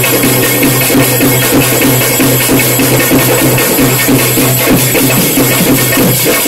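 Traditional Sri Lankan drum ensemble playing a fast, dense rhythm on hand-played barrel drums, with a steady low tone held underneath.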